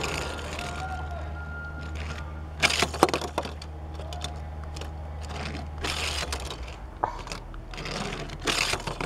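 Handling sounds: a sleeve rustling and light knocks on a wooden tabletop as toys are moved about, in several short bursts, over a steady low hum that stops about six seconds in.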